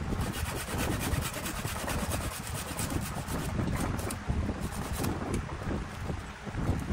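A thin hand saw blade rasping through the wooden waste block at the base of a turned bowl on a lathe, parting it off. The cut eases off about five seconds in, over a low steady rumble.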